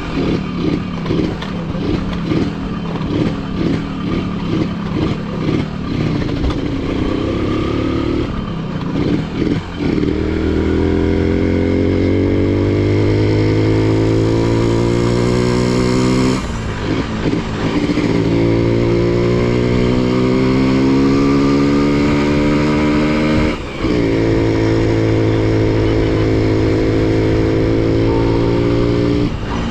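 Honda CDI-100's 100cc single-cylinder engine and exhaust, choppy and uneven at low revs for the first ten seconds, then pulling steadily with the pitch rising. It shifts up about sixteen and twenty-three seconds in, each time with a brief dip and a drop in pitch before rising again, and shifts once more near the end.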